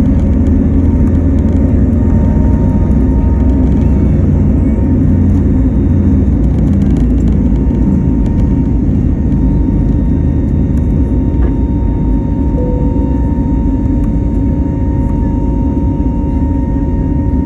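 Cabin noise of an Airbus A320neo heard from a seat near the wing-mounted CFM LEAP-1A turbofan: a loud, steady rumble with a steady whine on top.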